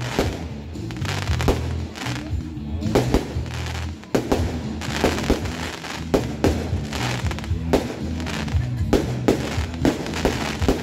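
Fireworks display: aerial shells bursting in quick succession, several bangs a second, with music playing underneath.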